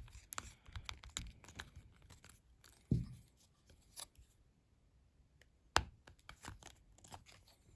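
Small plastic action-figure parts being handled and fitted back together: scattered light clicks and scraping, with a duller knock about three seconds in and a sharp click near six seconds.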